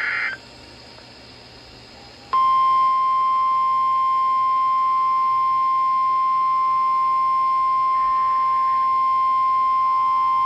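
NOAA Weather Radio's 1050 Hz warning alarm tone: one loud, steady, unbroken beep that starts about two seconds in and holds. It signals that a warning broadcast is about to follow.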